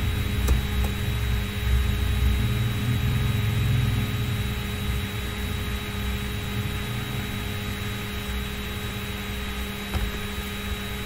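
Steady electrical hum and hiss of the recording background, with a low rumble that fades away over the first few seconds and a couple of faint clicks.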